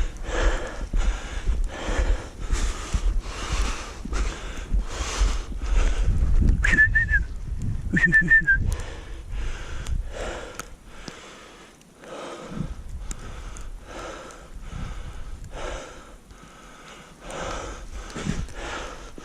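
A person breathing hard and trudging through snow, a breath or step about once a second, with wind rumbling on the microphone. Around the middle come two short, high whistle-like notes.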